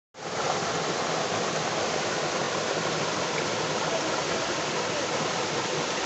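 Water of a small waterfall and stream rushing and splashing over rocks: a steady, even rush.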